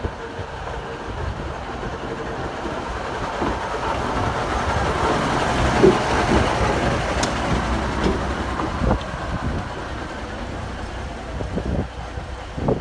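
Narrow-gauge diesel locomotive 'Vale of Ffestiniog' running as it rolls slowly past, loudest about halfway through and easing off as it moves away, with a few sharp knocks from the wheels and track.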